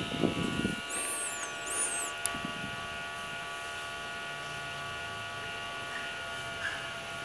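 Steady electrical hum and buzz made of several fixed tones over a light hiss, with a short low sound right at the start and two brief high chirps about one and two seconds in.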